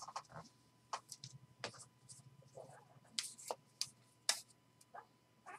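Football trading cards handled by hand: irregular soft clicks and flicks of card stock against card stock as the cards are fanned out and sorted.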